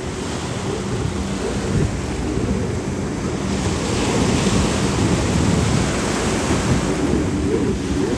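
Ocean surf washing around and wind buffeting the microphone, with a low drone of racing powerboat engines underneath.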